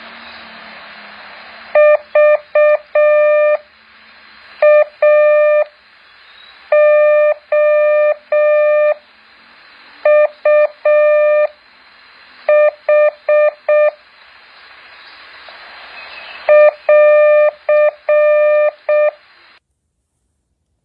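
Morse code practice tone: one steady beep keyed in dots and dashes, sent as six characters with pauses between them, over a background hiss.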